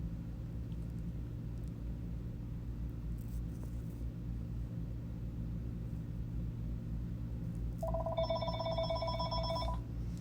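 A steady low electrical hum throughout; about eight seconds in, a trilling electronic ring tone, like a telephone ringer, sounds for about two seconds.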